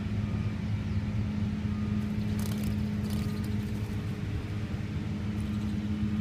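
Steady low engine-like hum, with a few faint clicks about two and a half to three seconds in.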